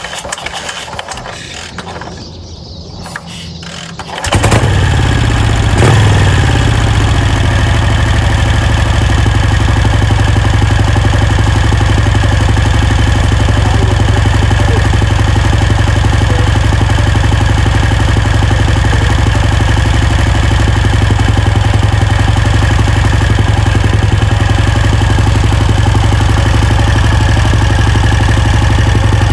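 1951 Vincent Rapide's 998 cc V-twin engine catches about four seconds in after being kicked over, then runs at a steady idle that is much too fast.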